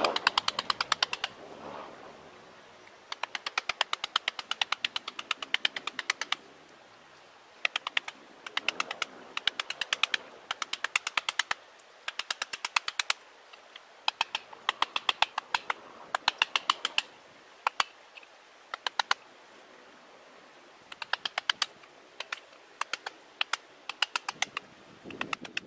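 Wooden mallet striking a carving chisel into the wood of a standing tree: quick runs of sharp, evenly spaced taps, several a second, broken by short pauses.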